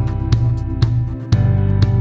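Background music with a steady beat of about two hits a second over a sustained bass line.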